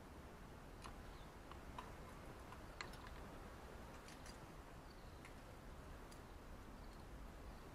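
Faint, scattered sharp clicks and ticks, about six spread irregularly, with a couple of faint short high chirps, from small garden birds, over a quiet outdoor background.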